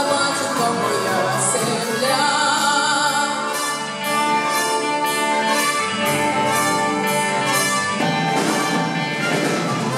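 A female vocalist sings into a microphone, accompanied by a wind band of saxophones and flute. About three and a half seconds in, a steady ticking beat of about two a second comes in under the band.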